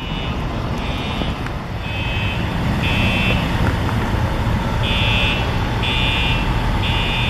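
Station fire alarm horn beeping, about one high beep a second in groups of three or four with a short pause between groups, over a steady low engine rumble that grows slightly louder about two seconds in.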